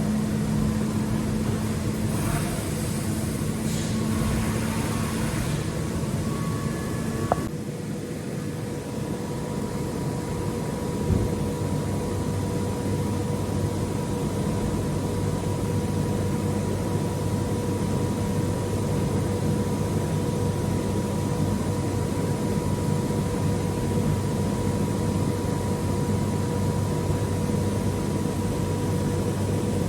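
Hermle C 400 U five-axis vertical machining centre running, a steady machine hum with a whine over it. A hiss comes and goes in the first few seconds, and about seven seconds in a click is followed by a shift to a new steady whine.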